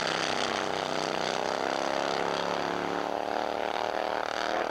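Harley-Davidson drag bike's V-twin engine running hard down the drag strip, a steady engine drone with several tones drifting slowly in pitch.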